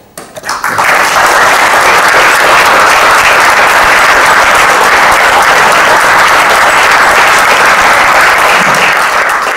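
Audience applauding: the clapping builds up within the first second, holds steady, and begins to die away near the end.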